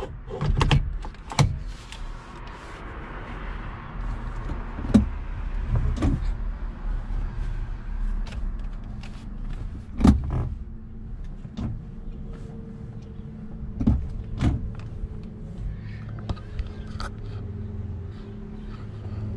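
Scattered knocks and clicks from someone shifting about and handling things in a car's cabin, over a faint steady hum.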